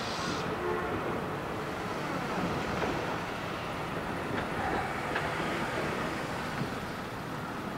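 Hankai Tramway Mo 701-series tram rolling slowly in on its approach to the stop: a steady low rumble of wheels on rail and traction motors, with a few faint clicks.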